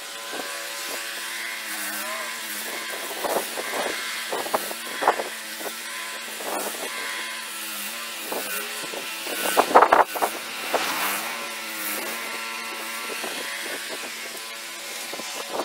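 Snowblower engine running steadily while clearing a sidewalk, with irregular louder rushes of noise, the loudest about ten seconds in.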